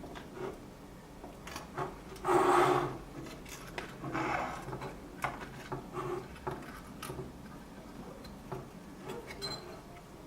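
Irregular scraping and light clicks of small hand tools working solder off relay pins on a circuit board. The loudest is a scrape of about half a second, a little over two seconds in, with another around four seconds.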